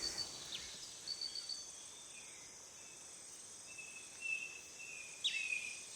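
Faint tropical forest ambience: a steady high-pitched insect drone, with a few faint chirps and whistled calls, one falling sharply in pitch about five seconds in.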